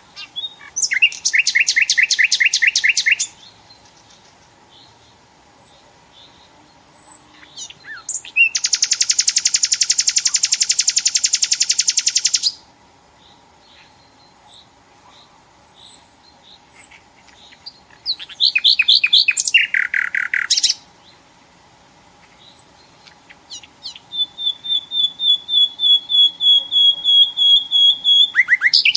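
Nightingale singing in separate phrases: fast trills, one long buzzy trill lasting about four seconds, and near the end a run of repeated whistled notes on one pitch that grow steadily louder. Faint short high chirps come between phrases.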